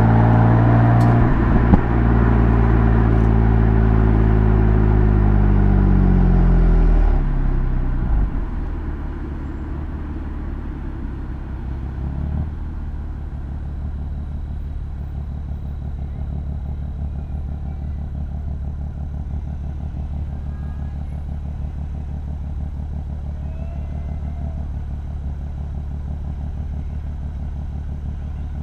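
BMW M3 F80's twin-turbo straight-six running loud under throttle, its pitch sinking over a few seconds. About eight seconds in it drops off to a steady low drone with road noise as the car cruises.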